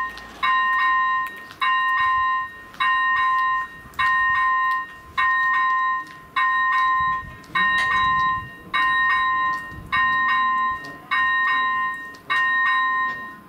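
Level-crossing electronic warning bell ringing a steady repeated chime, about one ring every 1.2 seconds, that stops near the end as the crossing switches off.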